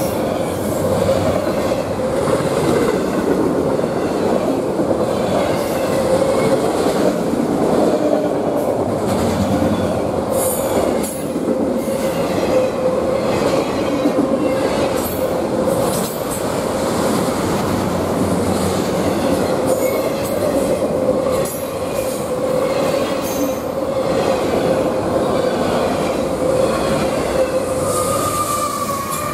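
Long string of autorack freight cars rolling past close by: steady wheel-on-rail noise with a continuous squealing wheel tone and scattered clicks from the wheels. Near the end the rear pushing GE diesel locomotive arrives.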